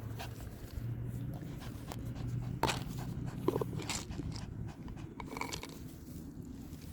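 A small dog biting and chewing on a toy, with scattered short crunching clicks over a steady low hum.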